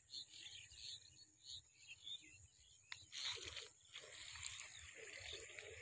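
Quiet rural ambience with a steady high insect whine and a few faint chirps. About three seconds in, irregular crunching and scraping footsteps and handling noise begin on the dry earth of the pond bank.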